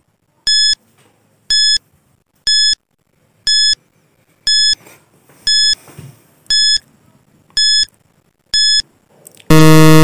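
Countdown timer sound effect: a short electronic beep once a second, nine times, then a longer, louder, lower buzzer near the end as the count reaches zero, signalling time is up.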